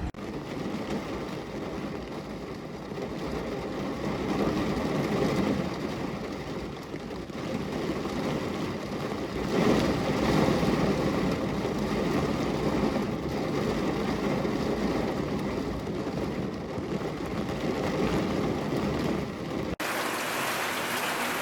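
Steady rain falling, a dense, even rush with most of its weight low. About twenty seconds in, it cuts abruptly to a thinner, hissier water sound.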